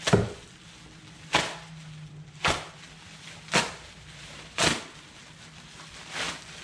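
Sharp knocks, five of them about a second apart and a softer one near the end, from the cardboard box and packaging being handled while the trailing arms are unboxed.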